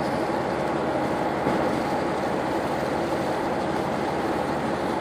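Steady rumbling running noise heard from aboard a moving boat: its engine and the rush of water, even and unbroken.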